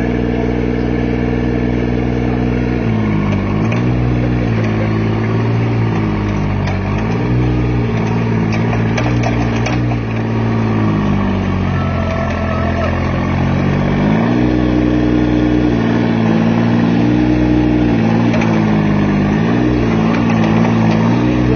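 Mini excavator's engine running, steady at first, then its pitch rising and dipping over and over from about three seconds in as the machine is worked at the controls.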